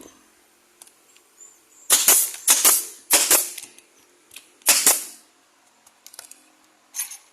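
Nail gun firing a series of sharp shots in quick succession, pausing, then firing once more near the end.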